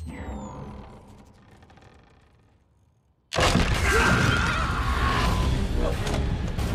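A low thud that fades away, then, about three seconds in, a sudden loud crash as a giant robot smashes through a stone wall, with rubble and debris falling and clattering after it.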